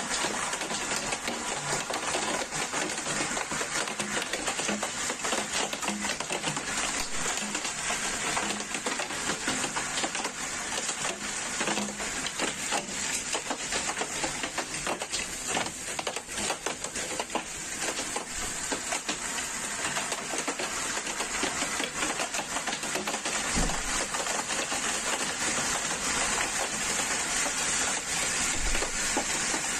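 Hailstones pelting down in a dense, continuous clatter of countless small impacts. Two heavier thumps come in the last several seconds.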